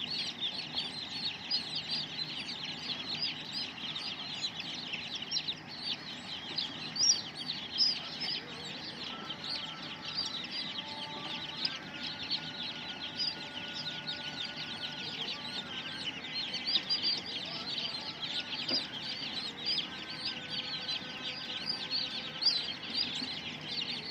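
A large flock of two-day-old chicks peeping continuously, a dense chorus of short, high, falling cheeps.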